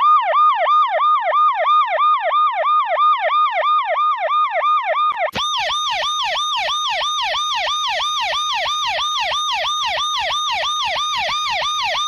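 Electronic emergency-vehicle siren in a rapid yelp, sweeping up and down about three to four times a second. About five seconds in it cuts out for an instant and resumes brighter and harsher, with a low buzz pulsing in time with the sweeps.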